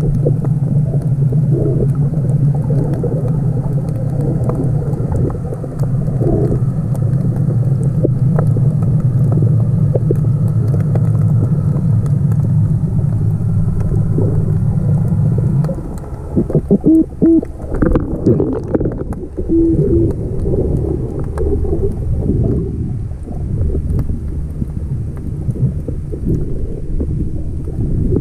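Underwater ambient noise picked up by a submerged camera: a low rumble with a steady hum that cuts off suddenly a little past halfway. After that come scattered clicks and knocks over the continuing rumble.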